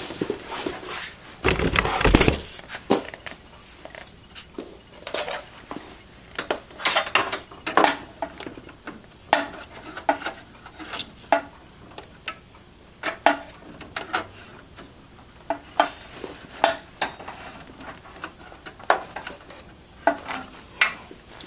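Irregular clicks, taps and rattles of plastic and sheet metal as hands work cables and connectors inside a cramped Dell XPS 8300 desktop case, with a heavier thump about two seconds in.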